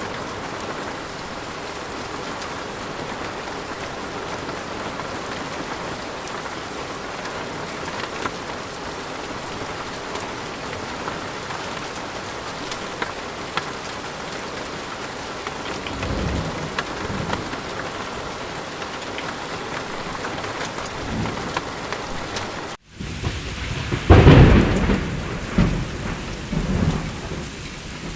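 Thunderstorm: steady rain with scattered drop patter, with low thunder rumbles building past the middle. Near the end, after a split-second dropout, a loud thunderclap breaks and rolls on in rumbles.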